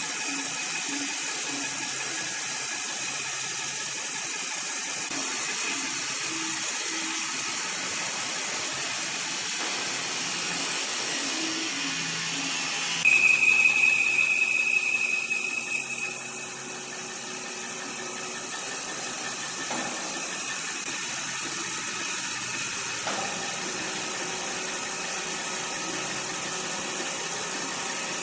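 Sawmill machinery running with a steady, hissing mechanical noise. About halfway through it gets louder for a few seconds with a high whine, as a saw bites into the wood.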